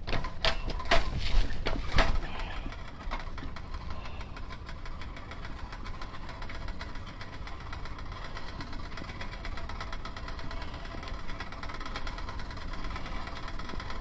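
Vehicle engine running steadily, a low rumble with fine, fast ticking. Several sharp knocks come in the first two seconds.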